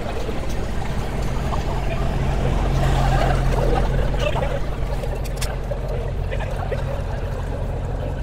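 A steady low droning hum under a faint murmur of people outdoors, swelling a little about three seconds in.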